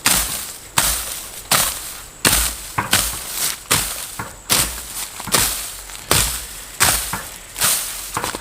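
Steady, evenly spaced chopping blows, about one every three-quarters of a second, each a sharp strike with a short scraping tail.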